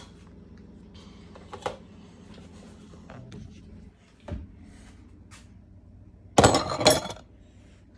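Household handling noises: a few light knocks and taps, then a louder, rough clattering burst that lasts under a second, about six and a half seconds in.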